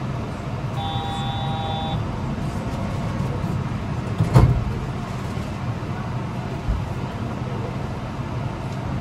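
Cabin running noise of a Yurikamome rubber-tyred automated guideway train in motion: a steady rumble and hum. A brief electronic tone of several pitches sounds about a second in, and a single sharp thump comes a little over four seconds in.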